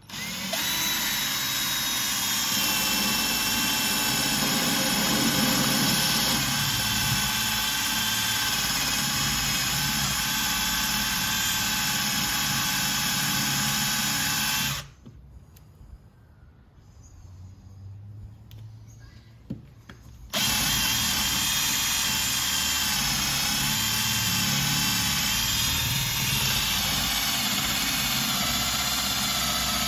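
Electric drill boring test holes into a fibreglass boat transom, checking the marine-ply core behind it for trapped water. It runs with a steady whine, stops for about five seconds about halfway through, then runs again.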